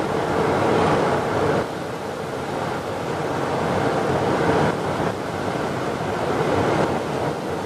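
Steady rush of wind and road noise from a vehicle travelling at speed, with a constant drone underneath. The rush eases briefly about a second and a half in and again near five seconds.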